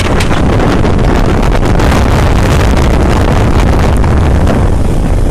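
Loud, steady wind rushing and buffeting against the microphone of a moving motorbike, with the bike's engine running under it.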